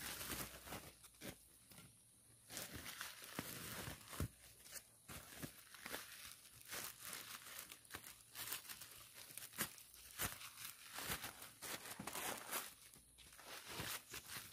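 Clear plastic bag crinkling and rustling in irregular bursts as its gathered neck is twisted and tied shut with string.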